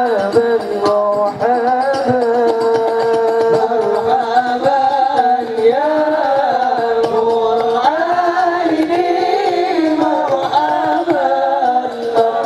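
A group of young male voices singing together into microphones over a stage sound system: a melodic chant with long held notes that waver and bend.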